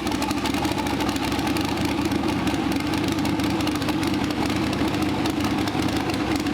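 Twin-turbocharged LS V8 engine idling steadily in a Mustang strapped to a hub dyno.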